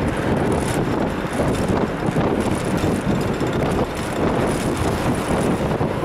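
A Mitsubishi-built city bus, similar to a Mitsubishi Fuso Aerostar K, heard from inside while it drives along: a steady rumble of the moving bus, with wind rushing in through the open windows.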